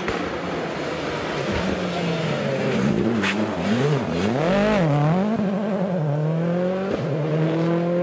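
Ford Focus WRC rally car's engine working through a hairpin: the note dips and rises quickly several times as the throttle is lifted and blipped in the corner, with a sharp crack about three seconds in. The pitch then climbs steadily as the car accelerates away.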